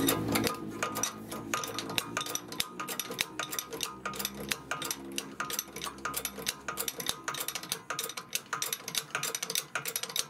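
Rapid, irregular clicking as a shop press slowly forces a silent block bushing into a car's front suspension control arm, with a low hum that dies away about two and a half seconds in.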